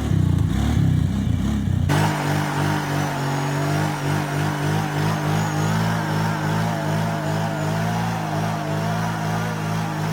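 Kawasaki Brute Force ATV engine revving up and down, then after an abrupt change about two seconds in, running at a fairly steady pitch that wavers slightly as it is ridden.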